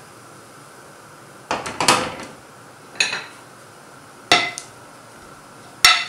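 Metal cookware and a serving spoon clanking against a couscoussier steamer pot and a glass bowl as steamed rice is turned out to cool. There is a quick cluster of knocks about a second and a half in, then single ringing clanks at about three seconds, just after four seconds and near the end.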